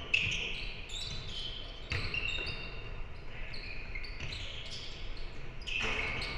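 Basketball game play on a hardwood court: sneakers squeak in short high chirps and the ball bounces, with a sharp knock just after the start.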